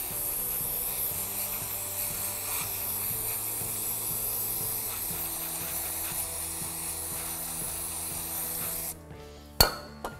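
Aerosol can of throttle body cleaner hissing steadily as it is sprayed through a straw into a throttle body's bore to wash off carbon. The spray stops near the end and is followed by a sharp knock.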